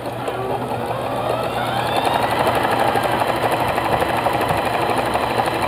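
A computerized sewing machine starting up. Its motor whine rises in pitch over about two seconds, then it runs fast and steady with a rapid needle clatter as it stitches fabric.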